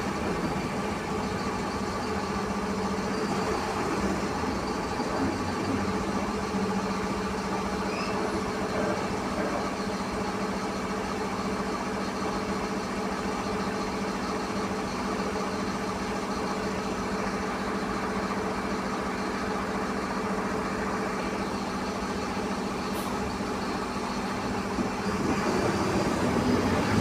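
Mercedes-Benz LO 916 Bluetec 5 bus, its OM924 LA 4.8-litre four-cylinder diesel and drivetrain running steadily with a constant hum, growing louder near the end.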